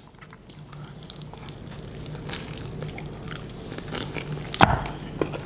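A person biting into and chewing a burrito of chicken, beans and rice, soft wet mouth clicks, with one sharp knock about four and a half seconds in.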